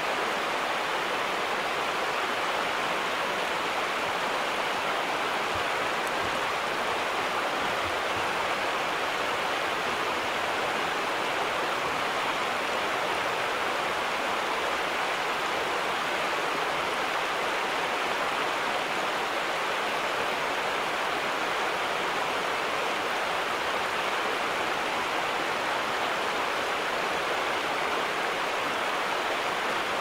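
River water rushing over rapids: a steady rush of white water.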